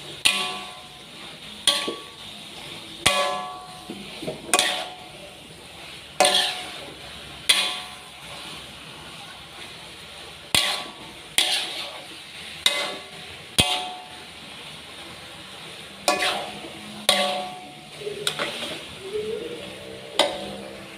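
Metal spatula clanging and scraping against a large metal wok while stir-frying noodles with cabbage: irregular ringing knocks about once a second, with a couple of short pauses, over a faint sizzle of hot oil.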